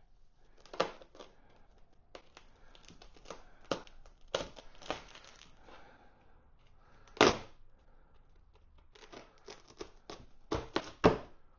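White foam packaging being worked and pried apart by hand: scattered scraping, rubbing and crackling of foam, with a louder bump about seven seconds in.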